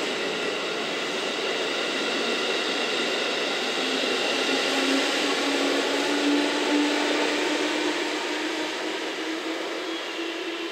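JR West 213 series electric train pulling away from a station platform and gathering speed. The cars run past with a steady rumble and a whine that rises slowly in pitch. The noise fades near the end as the last car leaves.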